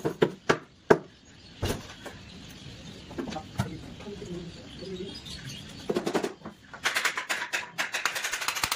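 Sharp clicks and knocks from fitting wall panels: a few scattered knocks at first, then a fast rattling run of clicks in the last few seconds.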